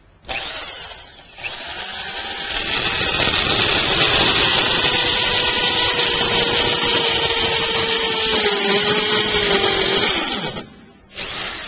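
DeWalt hammer drill in hammer mode boring into masonry with a carbide-tipped bit. It starts with a short burst, then runs steadily under load for about nine seconds, its motor tone sagging slightly near the end before it stops.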